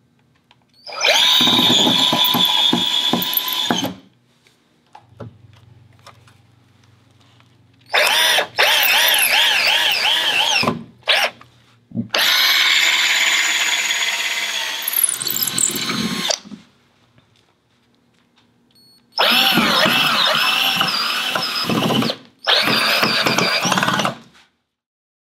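Hitachi cordless drill running in about five bursts of a few seconds each, drilling holes into concrete block and driving Tapcon masonry screws. The motor's pitch wavers under load during some of the bursts.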